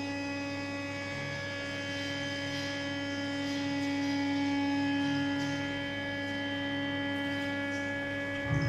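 Amplified electric guitar strings ringing on in a steady drone of several held tones over amplifier hum, sounded by zebra finches landing on the strings. Near the end a low knock brings in fresh notes.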